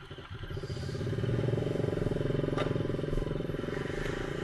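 Motorcycle engine running, its level rising over the first second or so and then holding steady.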